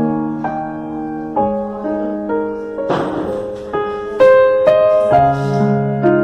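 Background piano music: held notes and chords changing every half second or so, with a short rushing noise about three seconds in.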